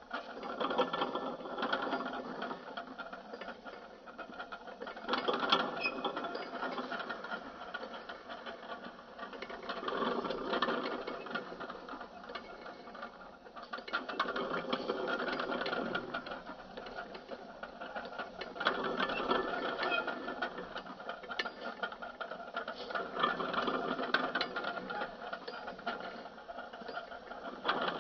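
Small motor-driven rolling-road test stand running: its rubber belt and rollers whir and rattle steadily under a tethered 1:64 model truck, swelling and fading every few seconds.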